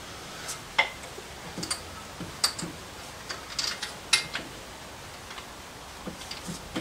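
Scattered sharp metallic clicks and taps of hand tools and a spark plug socket working on the engine, with a few louder clicks spread unevenly through.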